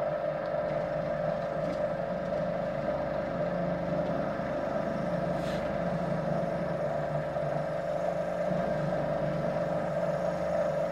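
Electric potter's wheel motor humming steadily, a constant even drone while the wheel turns slowly.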